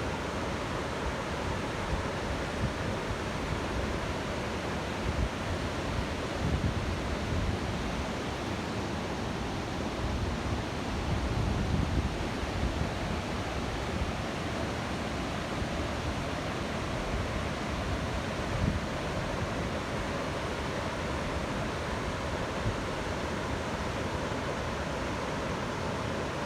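Waterfall rushing steadily, a continuous even roar of falling water, with a few brief low rumbling swells partway through.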